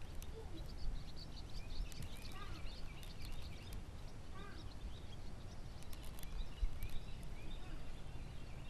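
Small birds chirping in quick runs of short, high calls, over a faint low rumble of background noise.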